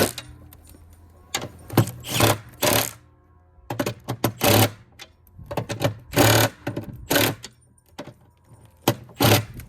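Impact driver with a 7/16 socket, running in a series of short bursts with pauses between them. It is snugging nylock nuts onto 1/4-inch carriage bolts only until the spacers stop spinning, so the bolts don't spin out in the aluminium.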